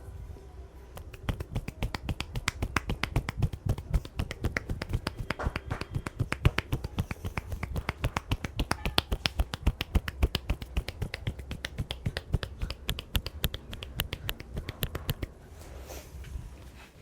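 Fast, even run of sharp slapping clicks, about seven a second, from hands striking the head in a percussive head massage. It starts about a second in and stops a little before the end.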